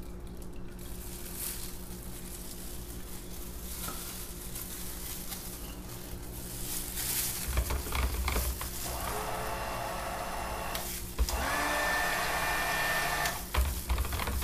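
Handheld stick blender mixing soap batter in a small plastic pitcher, switched on in short pulses in the second half: it whirs up to speed, stops briefly, then whirs up again, with a few low thumps in between.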